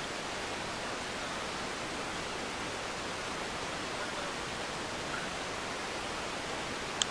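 Steady, even rushing noise with no pitch or rhythm, and a short click near the end.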